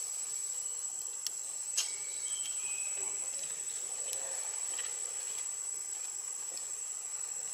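Steady high-pitched drone of insects, with two sharp clicks between one and two seconds in and a few brief faint chirps just after.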